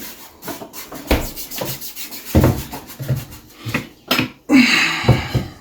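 Irregular knocks, clicks and rubbing of things being handled, with a short harsh scrape near the end.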